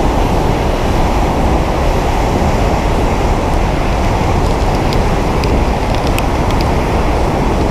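Loud, steady rushing of a waterfall close by, with its spray and wind buffeting the microphone into a deep rumble. A few faint ticks come through in the middle.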